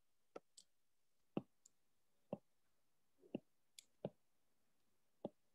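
Near silence broken by a series of faint, short, sharp clicks, roughly one a second and not evenly spaced.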